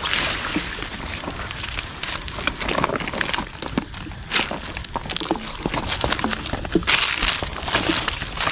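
Footsteps crunching and rustling through dry grass and brush, with scattered crackles of twigs and stalks and a louder rustle about seven seconds in.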